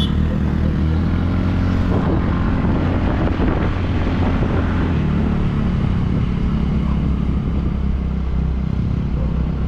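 A vehicle engine running steadily while driving along a road, with road and wind noise.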